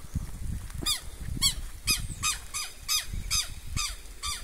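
Southern lapwing (tetéu) giving repeated harsh alarm calls, about two a second, each a short sharp note. This is the bird's alarm at people close to its nest and chicks.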